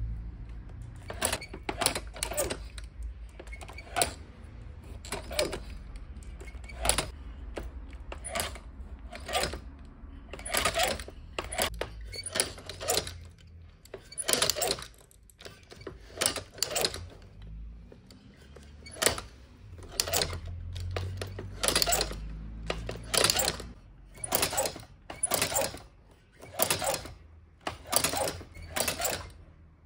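Cylinder-arm shoe-patcher sewing machine stitching through a boot upper, clacking once with each stitch at an uneven pace of about one stitch a second. A low rumble runs under it, fading out about halfway through.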